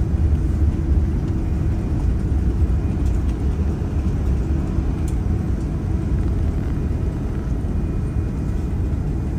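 Steady low cabin rumble of a Boeing 787-10 taxiing after landing, the engines at idle and the wheels rolling on the taxiway.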